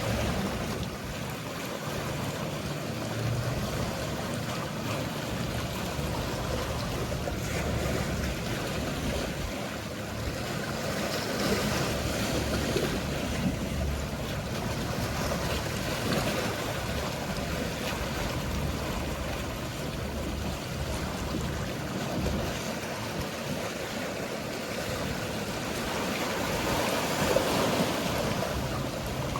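Mediterranean sea waves washing in, with a steady low hum of boat engines underneath. A few louder swells come through around the middle and near the end.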